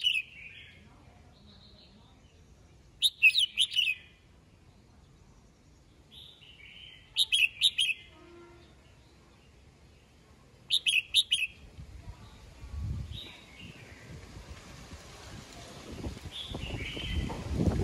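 A red-whiskered bulbul singing its morning song: three loud phrases, each a quick run of bright whistled notes, about four seconds apart, with softer single calls between them.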